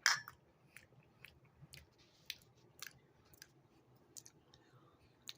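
A person chewing a mouthful of stir-fry with chicken nuggets. A sharp click at the very start, then faint scattered clicks and smacks of the mouth.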